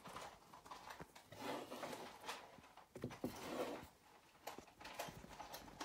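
Soft rustling and scattered light clicks and taps from hands handling and shaping fabric on a figure.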